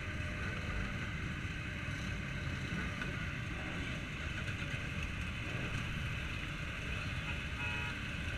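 Many motorcycle engines idling together, a steady low rumble with no revving.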